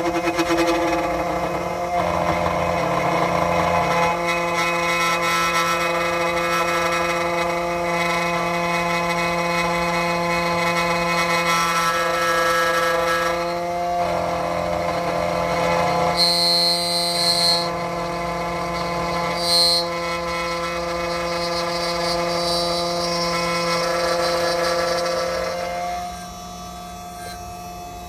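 Key-cutting machine's motor running with a steady hum while a duplicate HU66 key is cut, with two short high-pitched scrapes of the cutter on the key blank a little past the middle; the hum drops away near the end.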